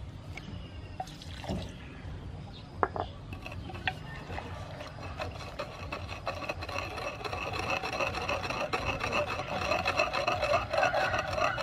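Wooden pestle grinding and stirring a wet paste of chilli, garlic, sugar and fish sauce in a wooden mortar: a few light knocks, then a steady rubbing grind from about halfway in that grows louder and stops abruptly at the end.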